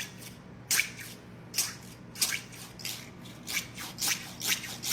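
A 3D-printed plastic fidget star being worked in the hand, giving about eight short, crisp plastic clicks at uneven intervals.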